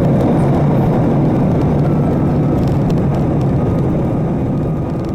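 Cabin noise of an Airbus A320-family jet rolling down the runway just after touchdown, with its ground spoilers raised. It is a loud, steady rumble of engines and wheels that eases slightly near the end.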